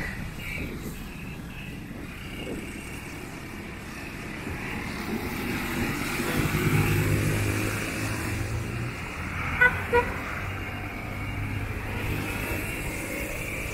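Motorcycle traffic passing, with engines running and swelling as a bike goes by, and two quick horn beeps a little past the middle.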